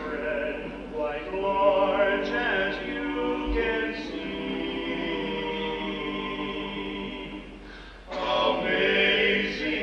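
Male barbershop quartet singing a cappella in close four-part harmony. A long chord is held through the middle and fades about 8 seconds in, then the voices come back louder near the end.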